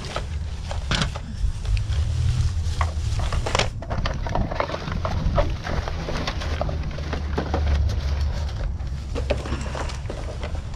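Plastic bags, paper receipts and cardboard packaging rustling and crinkling as gloved hands and a reach-grabber tool sort through discarded items, with many short irregular crackles and clicks over a constant low rumble.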